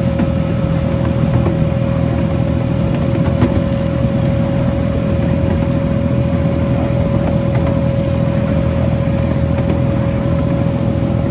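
Miniature railway locomotive's engine running steadily as the train moves along, a low drone with a steady whine held above it.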